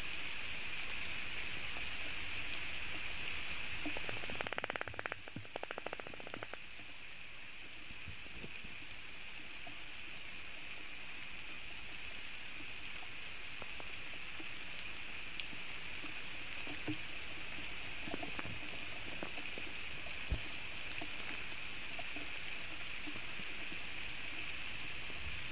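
Steady rain hiss over the nest webcam's microphone, with scattered single drop ticks. A short burst of rapid clicking comes about five seconds in.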